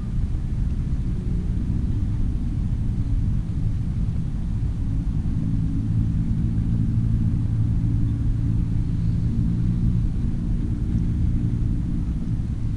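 A passing engine's low drone over a steady outdoor rumble, swelling in the middle and easing off near the end.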